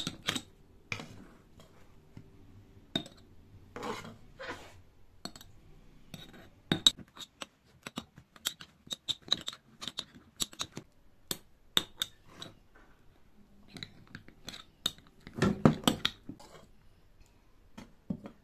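Metal spoon clinking and scraping against a glass jar and a ceramic bowl as pickle is spooned into the jar, in irregular taps with a quick flurry of clinks near the end.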